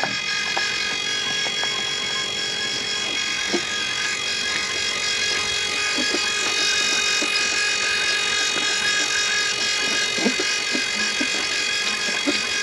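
Steady whine of a small electric motor, with a few light knocks and clicks of parts being handled.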